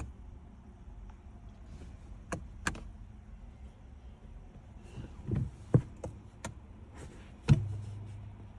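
Scattered sharp clicks and a few thumps from the start button and dashboard controls being pressed in a Peugeot e-208's cabin, with a low steady hum coming in about three quarters of the way through. The car does not power up: its battery is dead.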